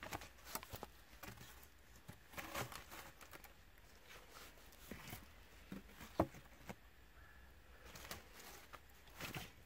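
Scattered light knocks and rustles as cut wooden poles are laid and settled onto a stacked log wall, with footsteps shuffling in dry leaf litter.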